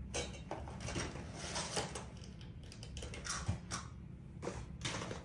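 Hands handling a VFC SIG Sauer P226 MK25 gas airsoft pistol: irregular light scrapes and rustles with a few small clicks of the metal parts.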